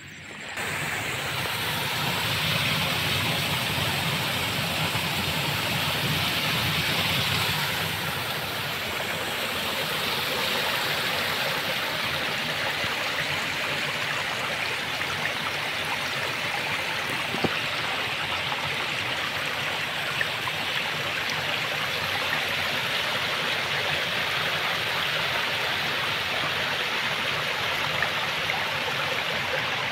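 Water rushing steadily through a small ditch channel, pouring out from under a slab, in a continuous even wash that starts abruptly about half a second in.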